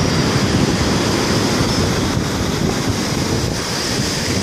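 Storm surf breaking, with foaming water washing up the beach. Wind buffets the microphone throughout.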